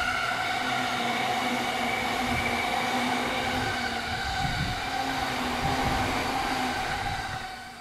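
Train running on rails, with a steady whine of several tones over the rumble of the wheels, dropping away sharply near the end.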